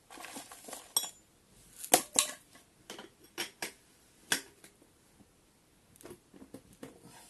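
Irregular metallic clinks and knocks as a 700 W electric-scooter hub motor is worked into the front suspension fork, its metal axle knocking against the fork. The loudest knocks come about two seconds in, with another sharp one a little past four seconds.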